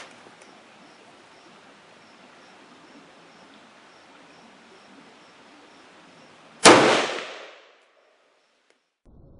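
A single shot from a Yugoslavian SKS Model 59/66A1 rifle in 7.62x39, a sharp report about two-thirds of the way in that rings out for about a second.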